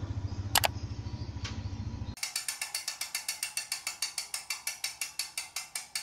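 A low rumbling hum with a sharp double click about half a second in, then, from about two seconds in, a steady run of rapid mechanical ratchet-like ticks, about six a second.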